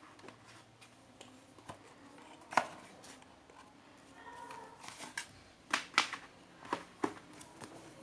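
Hands handling a CD album's packaging: scattered sharp clicks and taps of plastic and card, with a cluster of several clicks in the second half.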